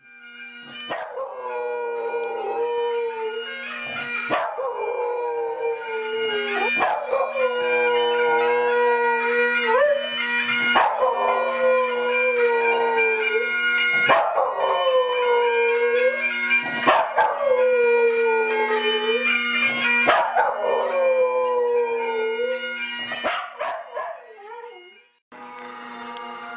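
A Tibetan terrier howling along to Scottish bagpipe music: about seven long howls, roughly one every three seconds, each sliding down in pitch, over the pipes' steady drone. Near the end the howling stops, the sound briefly cuts out and a new pipe tune begins.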